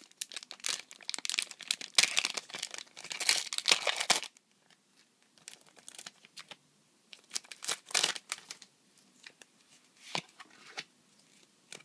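Foil Pokémon booster pack wrapper crinkling and tearing as it is ripped open, a dense crackle for about four seconds. Then only scattered quieter rustles and clicks as the cards are slid out of the pack.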